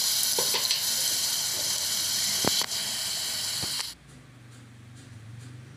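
Hot oil sizzling loudly in a pressure cooker as wet ground paste and yogurt hit the fried onions, with a couple of spoon clinks. The sizzle cuts off suddenly about four seconds in, leaving only a faint low hum.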